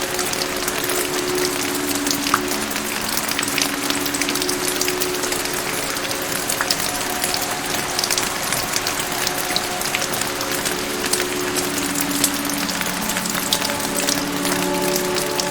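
Steady rain with many distinct drops pattering, over a soft musical background of long held notes that change every few seconds.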